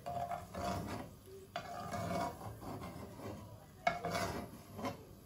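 Plastic slotted spoon scraping across a nonstick wok in about three strokes, scooping out cashews fried in a little oil.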